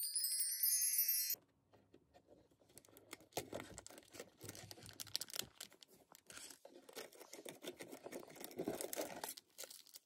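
A short, high sparkling chime about a second long, then faint crinkling and rustling of packaging handled by hand: a foil tea sachet and a chocolate bar wrapper.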